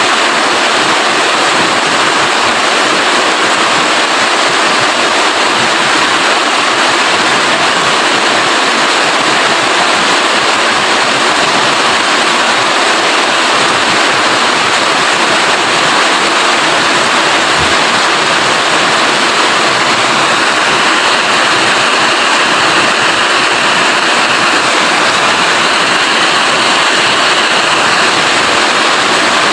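Steady rain falling, an even hiss of water that doesn't change. A faint high wavering tone sits underneath it in the last third.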